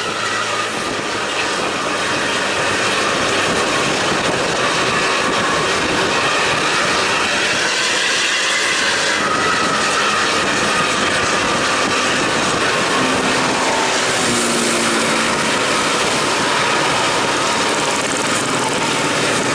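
Steady road noise of a vehicle travelling at highway speed, with engine, tyres and wind blended into one continuous sound that holds at the same level throughout.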